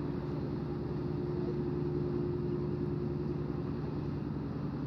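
Steady fast low throb and hum of a general cargo ship's four-stroke diesel machinery as the ship passes close by, with a steady higher hum that fades out near the end.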